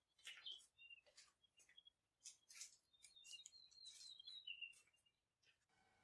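Faint birdsong: scattered short bird chirps, some brief and high.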